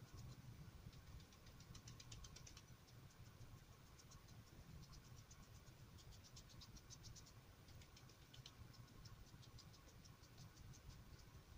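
Faint, rapid soft ticking in short runs: a filbert paintbrush dabbing watery acrylic paint onto wet paper, over a low room hum.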